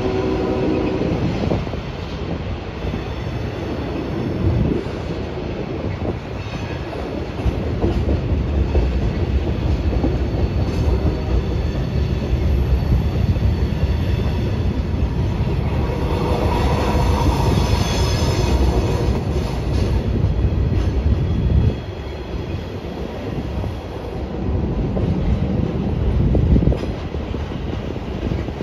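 Freight cars of a CSX mixed freight train rolling past on a curve, a steady rumble of steel wheels on rail. About halfway through, a high wheel squeal swells for a few seconds as the wheel flanges grind through the curve.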